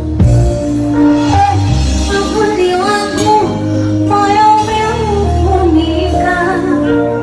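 A woman singing a pop song live over amplified backing music with a steady bass line, at a sound check.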